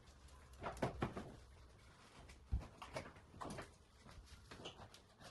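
Faint knocks and clicks of an Audi A3's plastic front bumper and grille being pulled and rocked by hand, about half a dozen in all. The bumper is still held on and not yet coming free.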